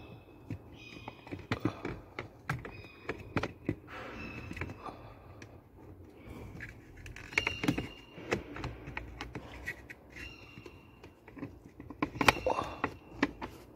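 Handling noise of a cabin air filter being pushed into its plastic housing: irregular plastic clicks, knocks and scrapes, with several short high squeaks. The fit is tight.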